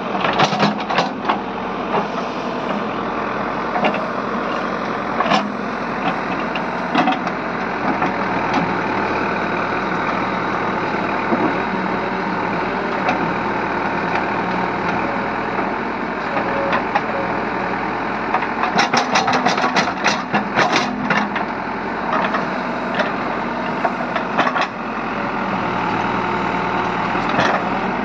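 Caterpillar 424B2 backhoe loader's diesel engine running steadily while the backhoe digs, with short knocks and clanks from the bucket and arm at intervals, a quick run of them about two-thirds of the way through.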